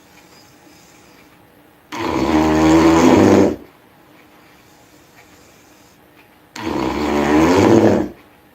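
A person snoring loudly: two snores of about a second and a half each, the first about two seconds in and the second near the end, each with a low, steady pitch.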